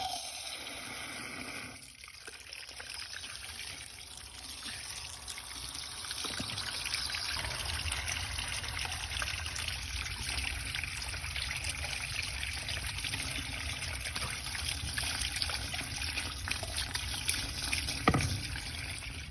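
Water trickling and running steadily, a little louder from about six seconds in, with one short knock near the end: water being run through for a red-dye test of the relined sewer drain.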